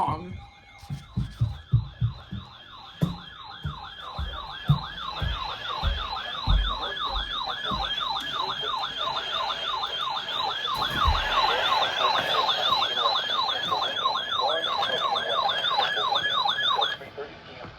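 Electronic emergency-vehicle siren in yelp mode: a fast up-and-down wail repeating about three times a second, cutting off suddenly near the end. Low thumps sound under it during the first several seconds.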